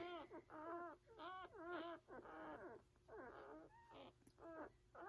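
Four-day-old puppies whimpering and squealing, faint short cries that rise and fall, about two a second in quick succession.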